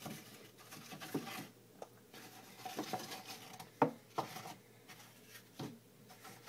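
Cardboard egg-carton pieces handled and set down in a plastic tub: soft rubbing and scraping with a few sharp taps, the loudest about four seconds in.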